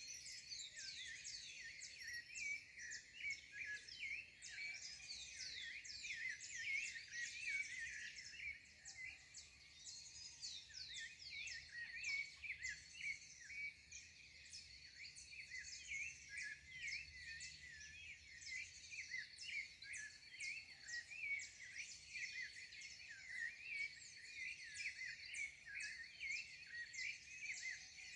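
Dawn chorus: many birds chirping at once in quick, overlapping high calls and down-sweeping notes. A thin, steady high-pitched tone runs underneath.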